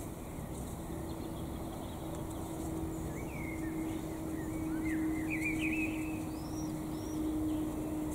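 Garden rake scraping through loose soil, with a bird twittering in a quick run of chirps in the middle and a steady low hum behind.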